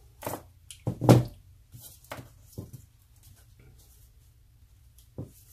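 A few clicks and knocks from small metal and plastic RC car steering parts and slip-joint pliers handled on a tabletop, the loudest about a second in and another near the end.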